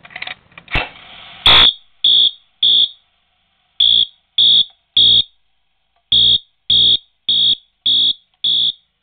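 An old Edwards coded fire alarm pull station is pulled with a short clatter. Its clockwork then drives a Wheelock fire alarm horn through the box code 3-3-5: three short blasts, a pause, three more, a pause, then five, each blast about half a second long.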